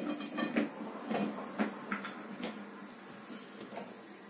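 Scattered light clicks and rustles of a cat rolling about on a linoleum floor while it is stroked, busiest in the first two seconds and thinning out after.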